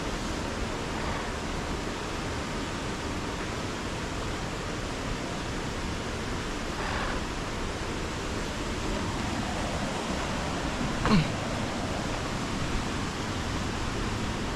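Steady rushing of a waterfall, with one short, sharp louder sound about eleven seconds in.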